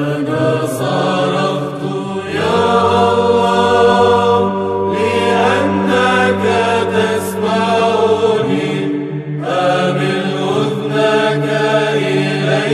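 A Greek Orthodox church choir singing Byzantine chant of a psalm in Arabic: a melody line in long, slowly moving phrases over a steady held low drone (the ison). The upper voices break off briefly a little after 9 seconds while the drone holds.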